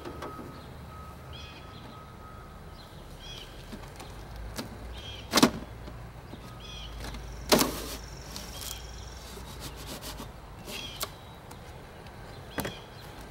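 A few sharp knocks and taps as wooden beehive parts are handled, the two loudest about five and a half and seven and a half seconds in. A bird gives a short chirp every second or two.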